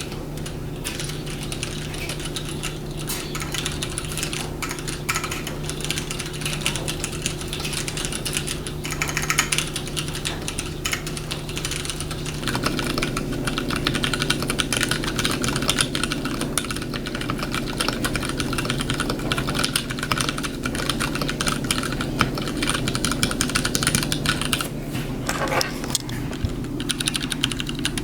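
Continuous typing on a Duck Viper mechanical keyboard with lubed, stickered MX Ergo Clear switches on 62 g springs: a dense, steady run of key clacks.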